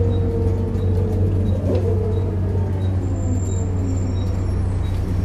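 Volvo B7RLE bus's diesel engine and drivetrain running with a steady low hum, a whine falling slowly in pitch as the bus slows, and a faint regular ticking.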